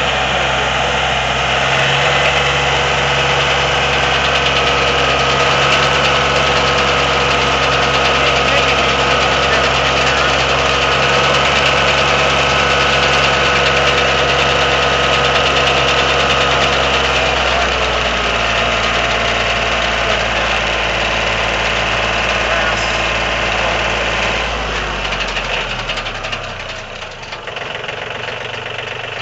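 Engine running steadily at a sawmill. About 25 seconds in it slows, falling in pitch and getting quieter.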